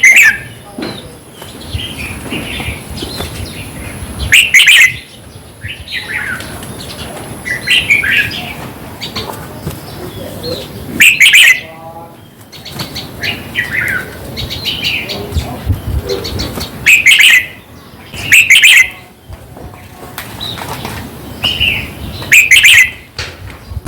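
Red-whiskered bulbuls calling: short, bright warbled phrases every few seconds, about seven of them very loud.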